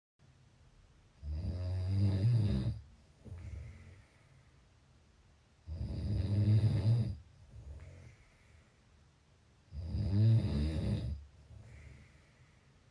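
A person snoring in a slow, regular rhythm: three loud snores about four seconds apart, each followed by a shorter, quieter breath.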